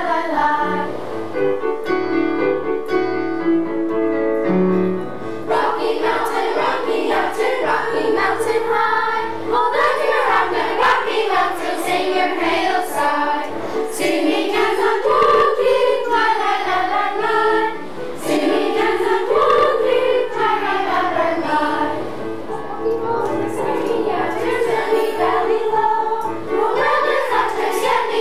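Elementary school children's chorus of fourth- to sixth-graders singing a song together.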